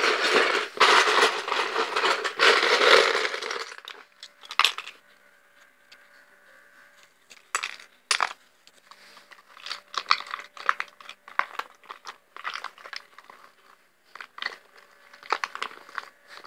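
Plastic Lego bricks rattling loudly for about four seconds, as from a hand rummaging through a tub of them, then scattered separate clicks and clinks of single bricks being handled and dropped into a plastic tub.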